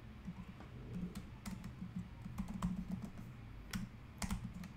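Typing on a computer keyboard: scattered, irregular keystroke clicks.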